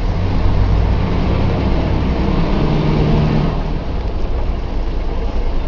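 Volvo B10M bus's straight-six diesel engine running under load. Its note climbs and then drops back abruptly about three and a half seconds in.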